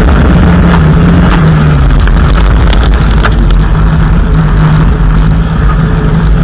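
Loud onboard sound of a Mitsubishi Lancer EX turbo rally car's turbocharged four-cylinder engine at high, fairly steady revs, heard from inside the cabin. The noise of tyres on gravel fills the sound, and sharp clicks of loose stones strike the car.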